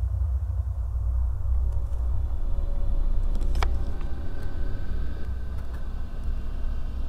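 A steady low rumble, with a single faint click about three and a half seconds in.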